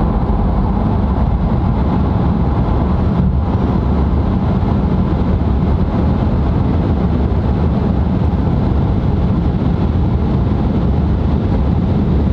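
Steady road and wind noise inside the cabin of a Tesla Model 3 Performance electric car driving at speed, mostly a low tyre rumble with no engine note.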